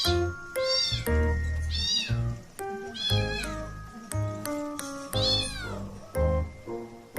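Bengal cat meowing about five times, short high-pitched meows that each rise and fall, over background music with piano-like notes.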